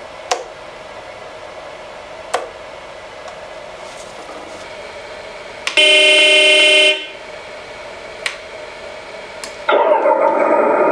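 RC excavator's electronic sound module sounding a horn: one loud blast of about a second, a bit under halfway through. Near the end it starts its simulated diesel engine sound, which comes in suddenly and keeps running loudly. Before that there is only a faint steady hum with a few sharp clicks.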